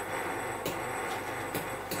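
Metal spinning top running on a glass mirror: a steady rolling rumble with a few sharp clicks.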